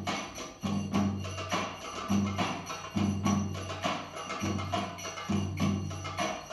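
Middle Eastern percussion music in a baladi rhythm: deep hand-drum strokes in a repeating pattern, with quicker, lighter taps and jingles between them.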